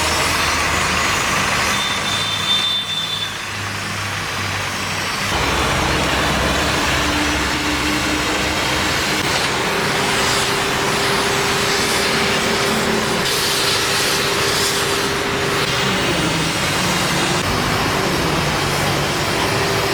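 Heavy machine's engine running. It dips briefly a few seconds in, then picks up again about five seconds in, with a steady whine over it for several seconds in the middle.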